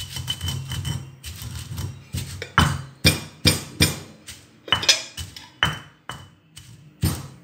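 Stone pestle pounding roasted black gram and dried red chillies in a stone mortar: repeated heavy knocks of stone on stone through the crushed grains. It is softer at first, then sharper knocks come about two a second from a little past the middle.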